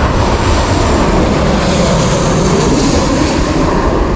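Airplane passing, its engine noise a steady, pretty loud rush with no breaks.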